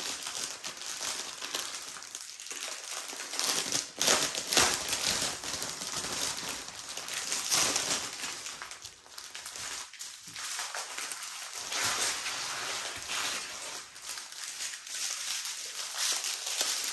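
Plastic packaging crinkling and rustling: a clear plastic bag of diamond painting drills being opened and the strips of small plastic drill bags inside pulled out and handled, in uneven surges.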